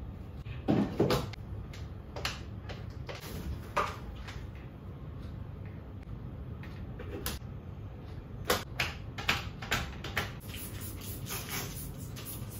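Scattered knocks and clatters of household objects being handled, loudest about a second in and in a quick run of several later on, over a steady low hum.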